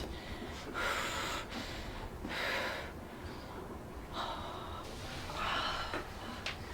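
A person breathing audibly, with about five separate breaths, each half a second or so long and a second or so apart.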